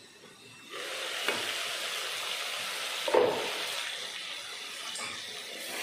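Vegetables sautéing in oil in an enamel pot, a steady sizzle that jumps up suddenly about a second in as the lid comes off. Two short knocks of metal, the louder one about three seconds in.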